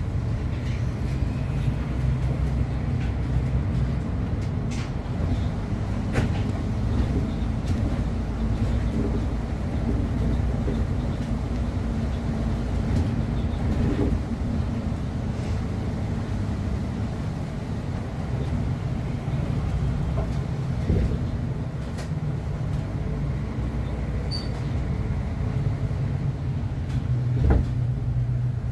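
City bus driving, heard from inside the cabin: a steady low rumble of engine and road, with scattered light rattles and knocks from the vehicle's interior.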